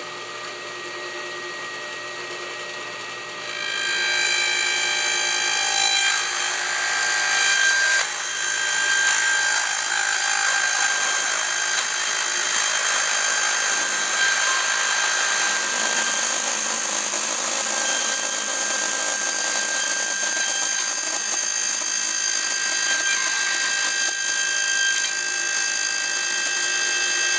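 Table saw running with a steady high whine that turns much louder about three and a half seconds in, as the spinning blade is raised up through packing tape laid over the blade opening to cut a zero-clearance slot.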